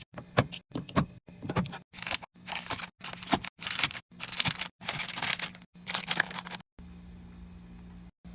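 A quick-cut run of short handling noises as drinks and snacks are restocked in a mini fridge: items set down and packaging rustling, each clip cut off sharply. About two seconds from the end these give way to a steady low hum.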